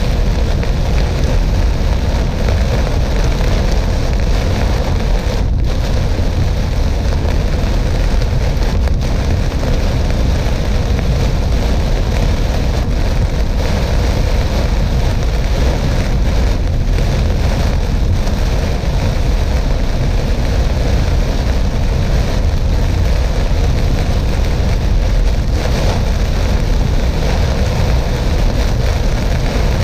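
Steady road and wind rumble of a car driving at highway speed, heard from inside the cabin, with rain on the car mixed in.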